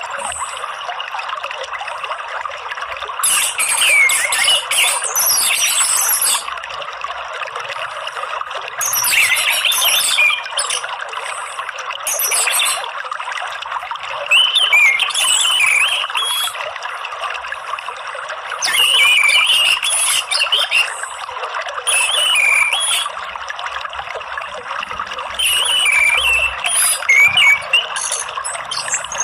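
Orange-headed thrush singing in about eight short bouts of quick, warbling, high-pitched phrases, over a steady rush of running water.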